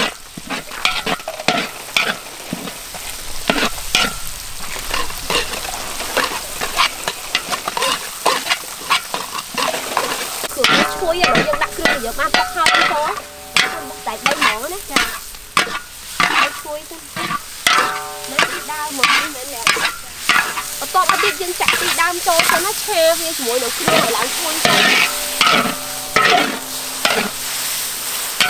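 Long metal spatula scraping and stirring in a large iron wok, shallots and curry paste frying in oil with a sizzle; the scrapes come over and over, each one short.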